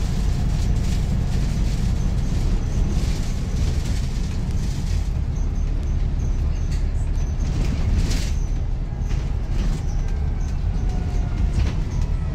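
Inside a moving Volvo B5TL / Wright Gemini 3 double-decker bus: a steady low engine and road rumble, with rattling from the bodywork and fittings as many short, sharp clicks.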